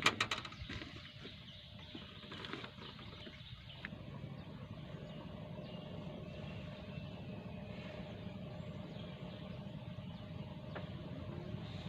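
A faint engine hum, steady and even, with a thin steady tone above it. A few sharp clicks come right at the start.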